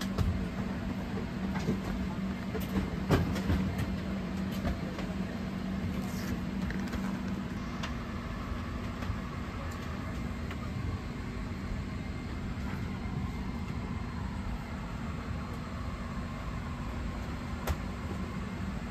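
Steady background hum of an airliner cabin parked at the gate: air rushing from the ventilation over a low, even drone, with a few light clicks scattered through.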